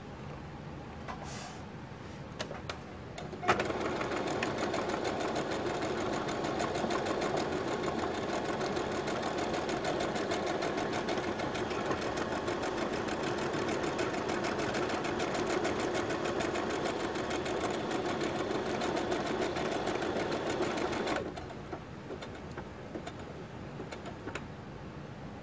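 Brother SQ9130 computerized sewing machine stitching a programmed lettering pattern, the name "Mary". A few light clicks come first. About three and a half seconds in, the machine starts with a sharp click and runs steadily at a fast stitch rate for about eighteen seconds, then stops abruptly.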